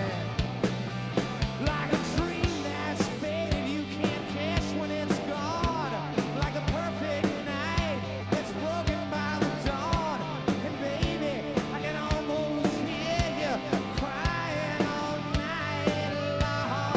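Live rock and roll band playing: electric guitars, bass and a drum kit keeping a steady beat.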